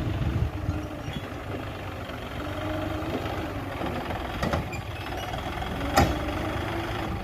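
Petrol engine of a wood-cutting machine idling steadily, with a sharp knock about four and a half seconds in and a louder one about six seconds in.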